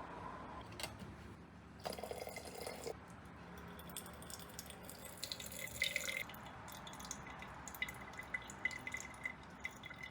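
Liquid dripping and pouring, with light clicks and clinks of utensils against glass.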